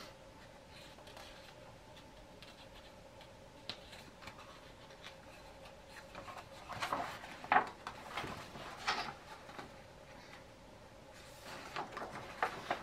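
A hardcover picture book being handled and a page turned: rustling of paper and light knocks of the book, the loudest with a sharp knock about seven and a half seconds in, more rustling near the end as the page turns over. A faint steady hum sits underneath.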